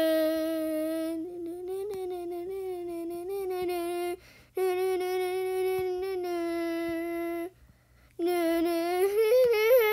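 A single voice singing wordlessly in long held notes: three phrases with short breaths between. The pitch is mostly level with small wavers and climbs higher in the last phrase.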